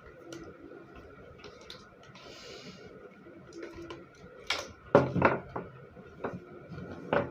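Small plastic parts being handled and pushed together, a soldered DC socket being fitted into a PVC end cap: light clicks and scrapes, with a few sharper knocks in the second half, the loudest about five seconds in.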